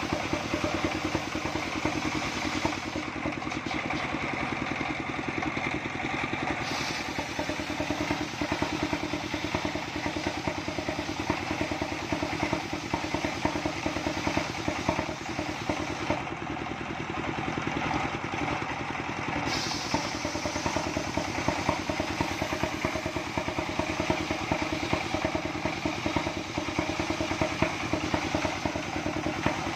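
Stationary diesel engine running steadily, driving a belt-driven circular saw blade that is ripping a coconut trunk into planks. Engine and sawing noise run on together, and the sharper sawing sound eases off briefly twice.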